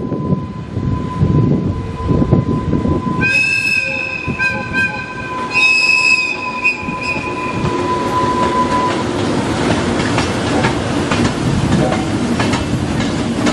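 Two coupled EH500 electric locomotives passing close by, running on rails with a rumble. A shrill high tone sounds twice, about three and six seconds in. From about eight seconds in there is a rapid clatter of wheels over rail joints.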